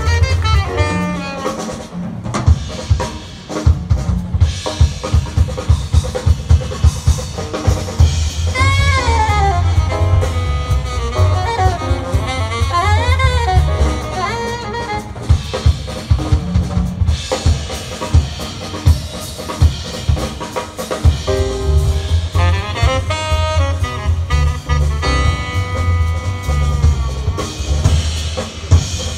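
Live jazz quintet playing: the drum kit is busy throughout with frequent bass drum and snare hits, and saxophone phrases run over it, most clearly about a third of the way in and again near the end.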